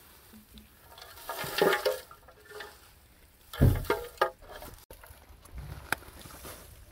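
Dry straw and leaves rustling and crackling as they are scooped by hand into a plastic basin, in uneven bursts, with a dull thump a little past halfway.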